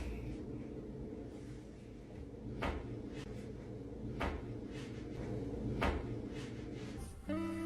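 Three short, sharp clicks about a second and a half apart over a low rumble, as a person's back is walked on with bare feet. Guitar music comes in near the end.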